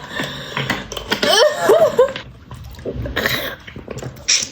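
Wordless vocal reactions: coughing and short exclamations that slide in pitch, typical of someone who has just tasted a spicy fermented carrot drink.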